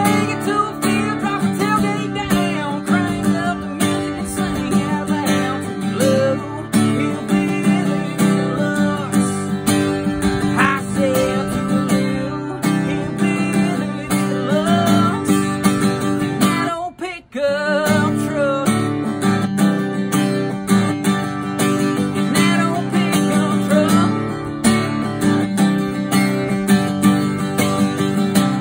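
Acoustic guitar strummed with a man singing along. The music breaks off for a moment a little past halfway, then carries on.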